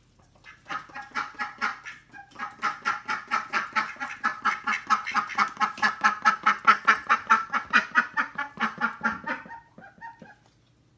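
Indian Runner ducks quacking in a fast, steady run of short quacks, about four or five a second, with a short break about two seconds in.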